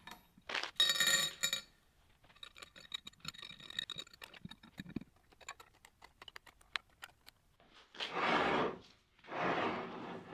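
Steel machine parts clinking together, with a ringing chink about a second in, followed by scattered light ticks and clicks as they are handled, and two brief scraping sounds near the end.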